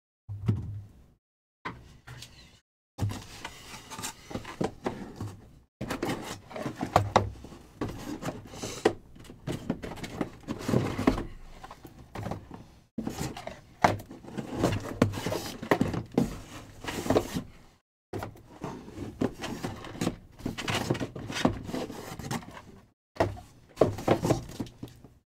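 Shrink-wrapped cardboard boxes of trading cards being picked up, handled and set down on a table: irregular knocks and thunks among handling noise. The sound cuts to dead silence several times.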